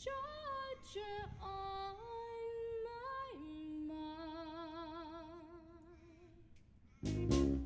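Female singer's unaccompanied vocal break: a short run of sung notes stepping up and down, then a long low note with vibrato that fades away. Near the end the full band comes back in with a loud hit on the drum kit.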